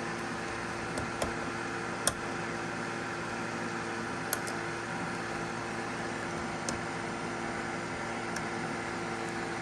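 A steady fan-like hum with several fixed tones, broken by a few short sharp clicks, about one, two, four and seven seconds in, as plastic door-trim clips are handled and fitted.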